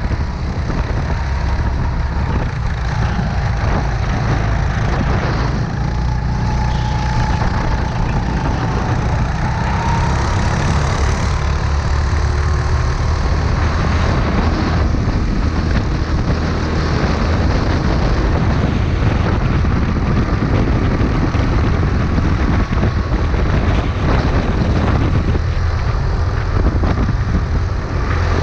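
Go-kart engine running under throttle on track, its pitch wavering up and down through the corners, over a heavy low rumble of motion and wind.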